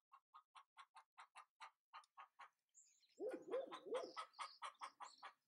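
Faint birds calling: a steady run of short chirps, about five a second, joined a little past the middle by three lower calls that each rise and fall.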